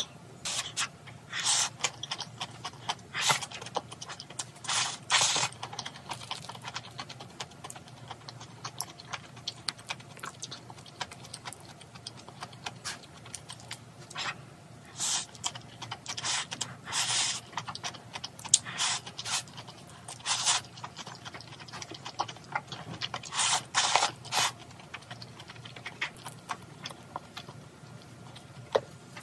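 A person slurping soft, wet ramyeon noodles from a bowl, in a series of short slurps at irregular intervals, with chewing in between.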